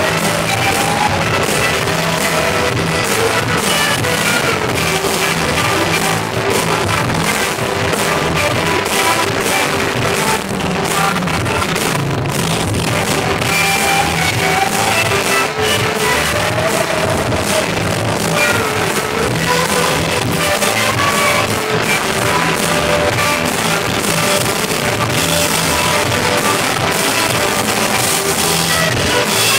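Live rock band playing steadily, with guitar and keyboard, heard from the audience in a poor-quality recording.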